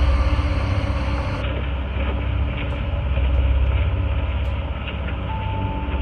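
A low rumble that swells and fades every few seconds, with a few faint clicks.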